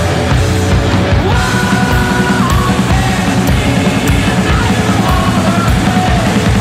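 Loud, heavy rock music with a steady, driving beat.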